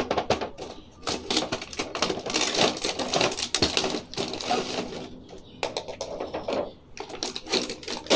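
Clear plastic blister tray and cardboard box of a toy figure set being handled and pulled apart: a dense run of crackling and clicking, with a couple of short lulls.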